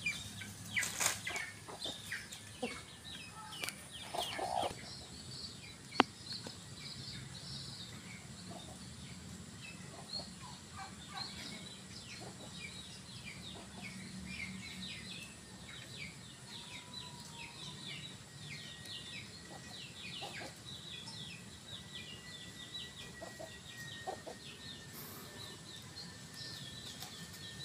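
A rooster clucking a few times in the first seconds, over continual rapid high chirping. There is one sharp click about six seconds in.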